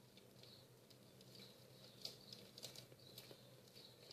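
Near silence: room tone with a few faint light ticks and taps, most of them between about two and three and a half seconds in, from small items being handled.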